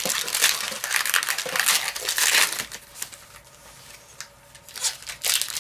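Yu-Gi-Oh booster pack's foil wrapper crinkling and tearing as it is opened, busy for about two and a half seconds, then a few short crinkles near the end.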